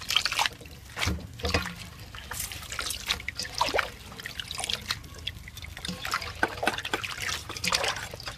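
Water trickling and dripping in irregular splashes as wet sliced bamboo shoots are moved from a metal basin of water into a plastic colander.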